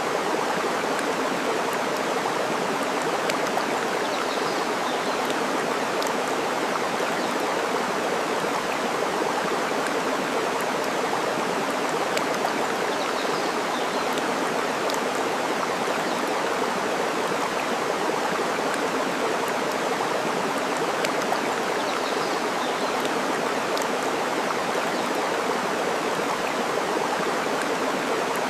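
Steady rushing of flowing water with sparse, sharp crackles of a wood fire scattered throughout, and a few faint bird chirps.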